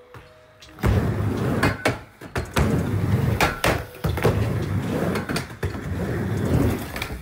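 Skateboard wheels rolling back and forth across a mini ramp: a low rumble that starts about a second in and swells and fades with each pass, broken by sharp clacks of the board.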